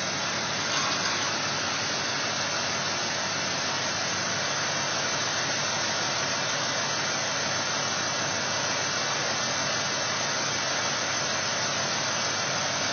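Old truck engine running steadily under the open hood, an even loud rush of noise, while water is poured from a jug into its radiator.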